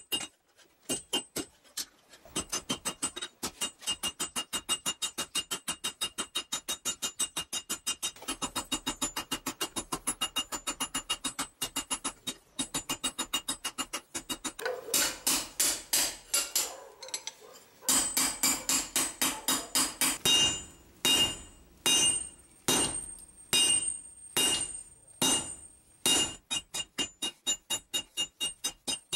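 Hand hammer striking red-hot leaf-spring steel on an anvil, each blow ringing. The blows come in a quick, steady rhythm of several a second; a little past halfway they turn louder and slower, about two a second.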